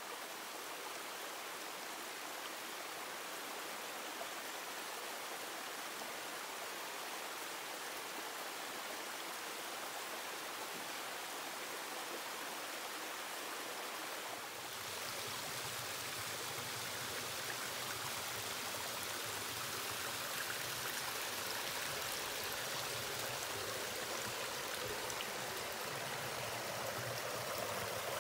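Water of the South Fork Skokomish River flowing, a steady rushing hiss. About halfway through it becomes a little louder and deeper.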